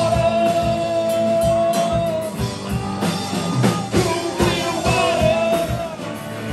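Live rock band playing: a singer's voice over electric and acoustic guitars, bass and a drum kit, with a long held note in the first two seconds and a shorter one about five seconds in.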